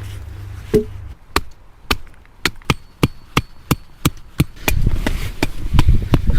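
A hand tool striking wood in a quick run of about fifteen sharp, even blows, about three a second, as in chopping or driving a stake. Wind rumble on the microphone comes up near the end.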